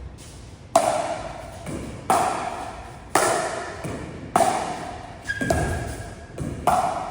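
Pickleball paddles hitting the ball back and forth in a steady rally: a sharp pop about every 1.2 seconds, each ringing out, with a few softer knocks in between.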